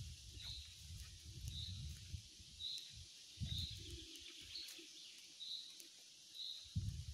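Footsteps and phone handling while walking a dirt woodland path, heard as uneven low thuds and rumble that pause around the middle. Behind them a short high chirp repeats about once a second.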